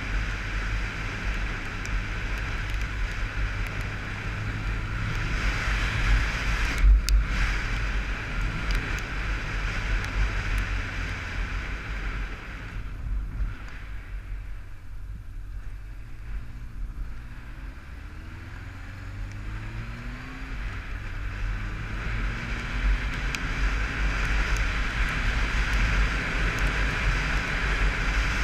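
Wind rushing over a helmet-mounted camera at road speed with a Honda motorcycle's engine running underneath, and a single knock about a quarter of the way in. The noise dies down as the bike slows for a junction about halfway, then the engine revs rise as it pulls away and the wind builds again.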